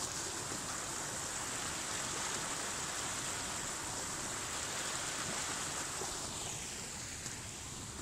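Steady rushing outdoor noise with a high hiss on top, easing off slightly near the end.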